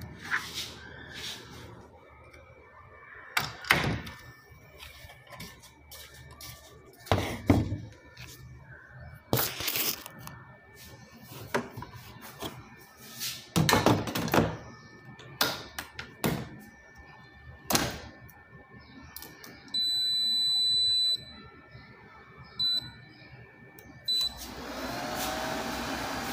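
Knocks and clatter of handling, with a lid and basket set in place, then an electric air fryer beeps: one long high beep and a short one a few seconds later. Its fan then starts and whirs steadily as it begins to fry the okra.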